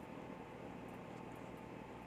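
Faint, steady background hiss and low hum with no distinct sound event.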